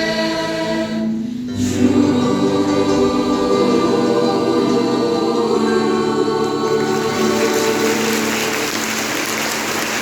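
A group of voices singing together as a choir, holding long sustained notes; a new phrase begins after a brief break about a second and a half in, and the singing fades near the end.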